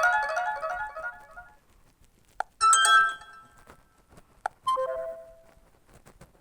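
Short built-in ringtone and notification tones of a Fly FS458 Stratus 7 phone, played one after another through the phone's speaker. A quick run of chiming notes is followed about two and a half seconds in by a brief bright chord, then a two-note chime near the end. A short click comes before each of the later tones.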